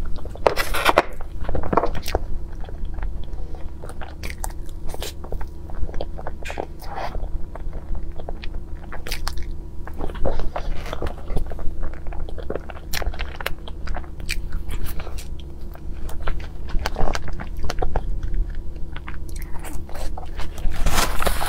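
Close-miked eating of strawberry crepe cake and fresh strawberries: wet chewing and lip-smacking with many small mouth clicks, over a steady low hum.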